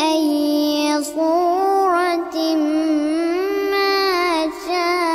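A boy reciting the Quran in melodic tajwid style, holding long notes that bend up and down, with three short breaks for breath.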